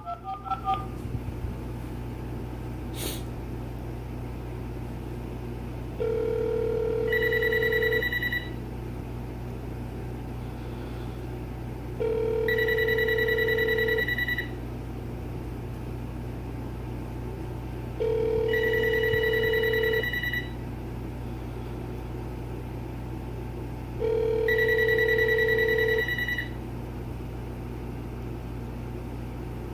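The last touch-tone digits are dialed, then four rounds of ringing about every six seconds: a steady two-second ringback tone from the calling line, overlapped each time by the trilling electronic ringer of a GE 26990GE1-D 900 MHz cordless phone being called. A single click comes about three seconds in.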